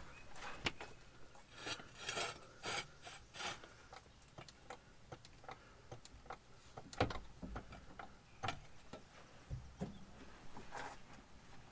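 Floor jack and jack stand being worked under a pickup truck: irregular metal clicks and knocks, about two a second in the middle stretch.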